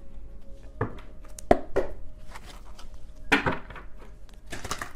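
Tarot cards being handled on a tabletop: a handful of separate soft slaps and clicks as cards are drawn and set down.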